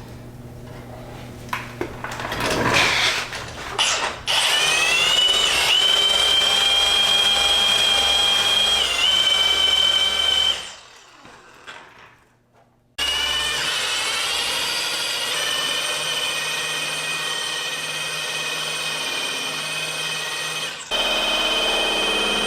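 Electric car buffer with a wool pad polishing paint: a high motor whine rises as it spins up, holds steady, dips briefly when pressed, then stops. After a short near-silent gap it spins up again and keeps running.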